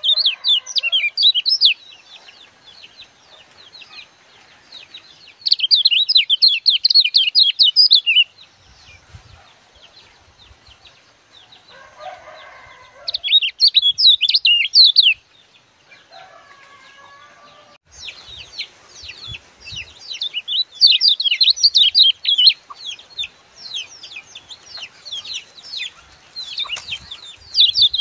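Caged kecial kuning, a yellow white-eye, singing in bursts of rapid, high twittering chirps, with short pauses between phrases and an almost continuous run of song through the last third.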